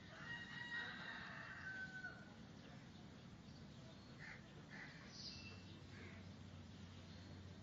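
Faint bird calls: one drawn-out call of about two seconds at the start, dropping slightly in pitch at its end, then a few short chirps a few seconds later.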